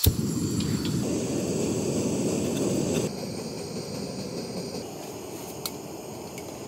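Fire Maple Blade 2 gas canister stove lit with a sharp click, its burner then running with a steady rushing hiss under a freshly filled kettle. About three seconds in the sound drops to a quieter level and carries on.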